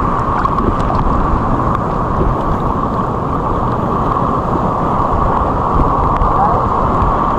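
Wind on the microphone mixed with ocean surf: a steady, loud, low rushing noise with no distinct events.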